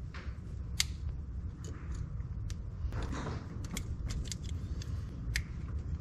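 Scattered small clicks and rattles of a wiring harness connector and its wires being handled and plugged together, with a brief rustle about three seconds in, over a steady low background rumble.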